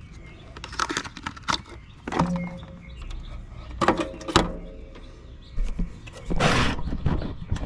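Clicks and knocks of a technician's hands handling a run capacitor, wires and tools, with a short rustling scrape a little after six seconds.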